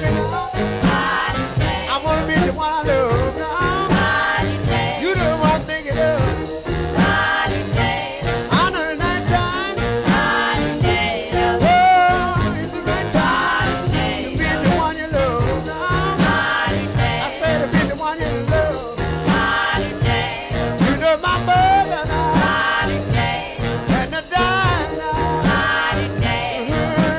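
Upbeat swing-style music with a steady beat.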